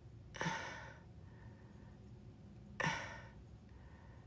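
A person sighing twice, two short breathy exhales about two and a half seconds apart.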